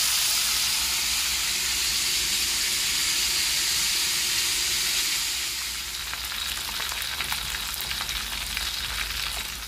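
Baung catfish frying in hot oil with turmeric spice and onion: a steady sizzling hiss that eases after about six seconds, with scattered crackles and pops.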